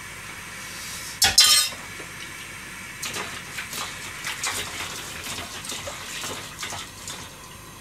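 Kitchen pots and metal utensils clinking: one loud clank about a second in, then a run of lighter clinks and taps.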